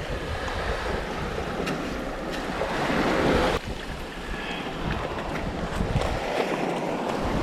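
Sea waves washing, swelling to a peak about three seconds in and falling away suddenly, then building again near the end, over a low rumble of wind on the microphone.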